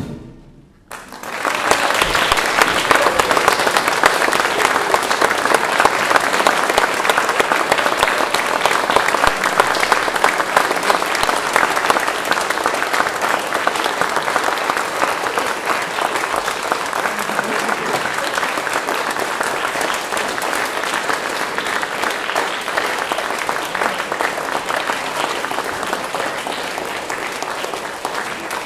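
Audience applause for a concert band: after a pause of about a second following the band's last note, clapping starts and carries on steadily, slowly fading toward the end.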